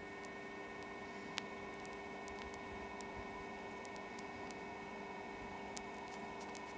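Steady electrical-sounding hum with a few fixed tones over a soft hiss, with scattered faint ticks and clicks, one sharper click about a second and a half in.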